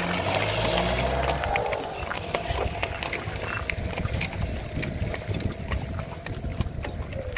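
Horse's hooves clip-clopping at a walk on a packed gravel road as it pulls a carriage, with a car's engine passing close by and fading away in the first second or two.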